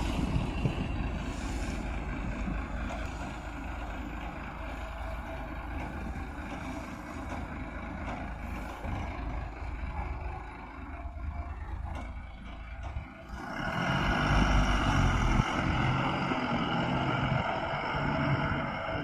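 Backhoe loader's diesel engine running, with wind noise on the microphone; about two-thirds of the way in the engine gets louder and its note steps up as it revs under load.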